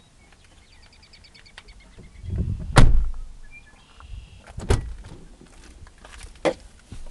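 Three sharp knocks or bumps: the loudest comes about three seconds in, after a low rumble, and two lighter ones follow. A faint, rapid series of high ticks is heard near the start.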